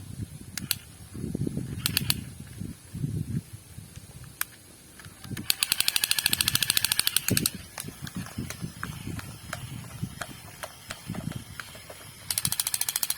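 Battery-powered toy gun firing: a fast rattling burst of clicks lasting about two seconds in the middle, and another burst starting near the end, after a few single clicks of the gun being handled.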